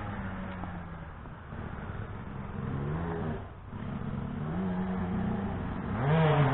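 2007 Yamaha YZ125 single-cylinder two-stroke motocross bike running laps, its revs rising and falling several times. It fades at first, then grows louder near the end as it comes back closer.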